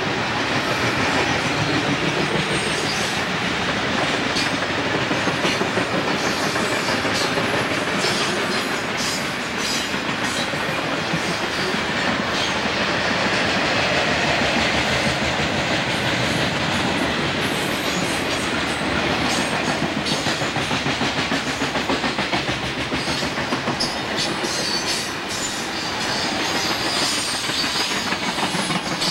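Freight train of boxcars and flatcars rolling past at close range: a steady rumble of the cars with the wheels clicking over rail joints.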